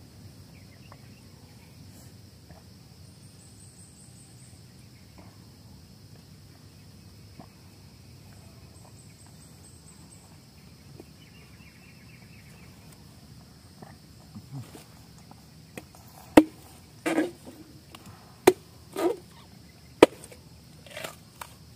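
Steady high insect drone with a few faint chirps. In the last few seconds come about six sharp knocks and thuds as a husked young coconut is handled on the ground.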